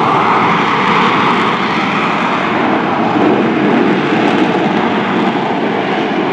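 McDonnell Douglas AV-8B Harrier II's Pegasus turbofan engine running, a loud, steady jet noise with a faint steady whine underneath.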